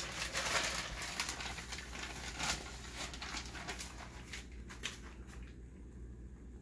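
Crinkling and rustling of a plastic bag of shredded cheese being opened and handled, with cheese sprinkled into the pan over a low sizzle from the omelette cooking on high. The crackly rustling is busiest at first and thins out toward the end.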